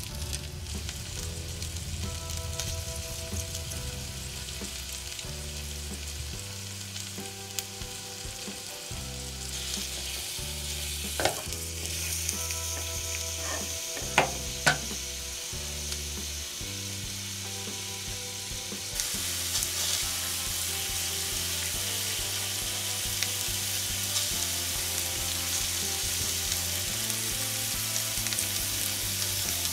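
Mushrooms sizzling as they fry in a tiny pan on a miniature toy stove, stirred now and then, with a few sharp clicks of the utensil against the pan near the middle. The sizzle grows louder about two-thirds of the way through.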